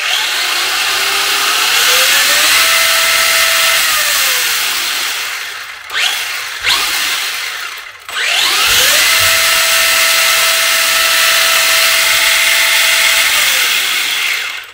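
Traxxas Fiesta ST Rally RC car's electric motor and drivetrain spinning the wheels free in the air, revved up twice: each time a whine rises in pitch, holds steady at full speed for a few seconds, then falls away as the throttle is released. A short blip comes in between.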